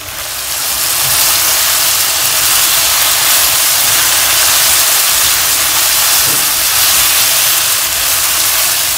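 Beef lung and sliced onions frying in vegetable oil in an uncovered pan: a loud, steady sizzling hiss that swells about a second in.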